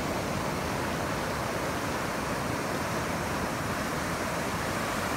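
Ocean surf breaking and washing in the shallows, a steady rushing noise.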